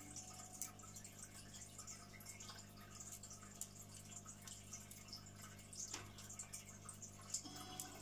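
Faint aquarium air bubbles streaming up and popping and splashing at the water surface, a continuous fine crackle of small pops over a steady low hum. Music comes in near the end.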